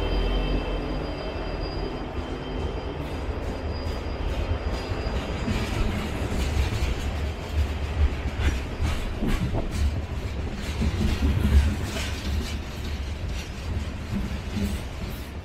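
A train rolling past: a heavy low rumble of the cars with wheels clicking over rail joints. There is a thin wheel squeal in the first few seconds, and the sound eases off toward the end.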